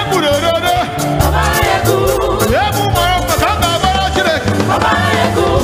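Live gospel praise music: a male lead vocalist sings sliding, ornamented lines over a band with a steady bass line and drums.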